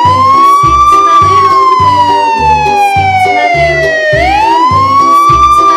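Wailing siren sound, its pitch rising quickly and then falling slowly over about four and a half seconds, climbing again near the end, over background music with a steady beat.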